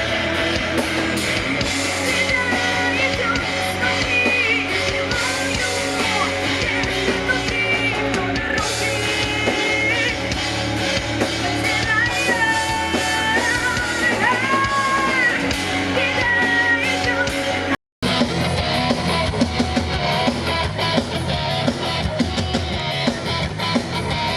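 Rock music with drum kit, guitars and a gliding melodic lead line. About 18 seconds in it cuts out for a split second and another rock track starts, with drums and guitar.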